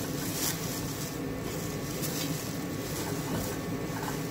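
Clear plastic bag rustling and crinkling in patches as a metal light-fixture shade is unwrapped from it, over a steady low hum.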